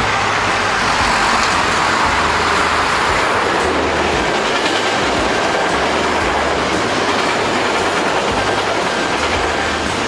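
Hankyu Kyoto Line train passing close by: a loud, steady rumble of steel wheels running on the rails.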